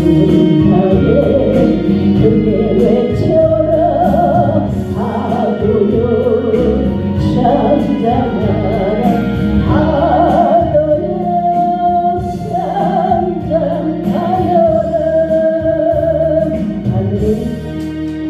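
Closing bars of a Korean gospel song: a singer draws out long sustained notes over instrumental accompaniment. The sound fades down near the end.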